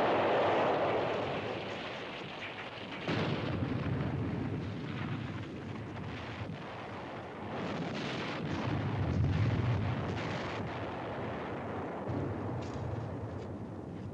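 Artillery shell explosions with a long rumble. One blast is fading at the start, a sudden new one hits about three seconds in, and another swells up near eight seconds.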